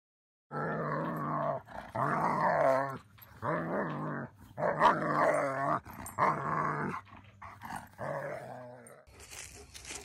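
A dog vocalising in a run of about seven drawn-out growls, each about a second long and wavering up and down in pitch. Near the end the growls stop and a faint rustling, crackling noise takes over.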